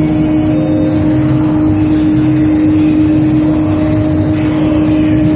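Loud, steady machinery noise with a constant droning hum and no change in pitch.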